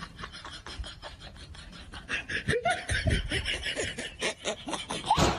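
A person laughing in rapid, short, repeated bursts, growing louder about two seconds in.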